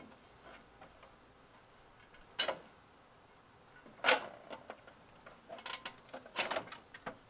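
Hands working parts loose at the neck of a CRT picture tube: three sharp snaps or clicks about a second and a half to two seconds apart, with lighter ticking and rattling between.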